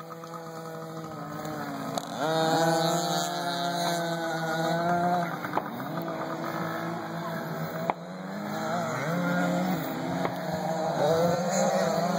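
Several small two-stroke youth dirt bikes (KTM 50s, a KTM 65 and a Yamaha 80) revving at once, their engine pitches overlapping and rising and falling as they ride. One engine jumps up sharply about two seconds in, and the pitch climbs again past the middle.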